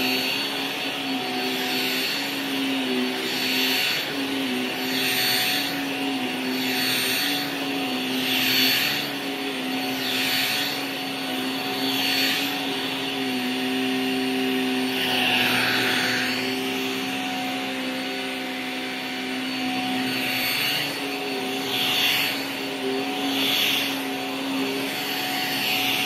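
Upright vacuum cleaner running on carpet: a steady motor hum under a hiss that swells and eases every second or two as it is pushed back and forth.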